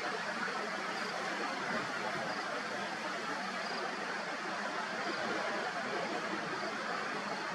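Steady rushing noise of the sea surf along a rocky coastline, without a break.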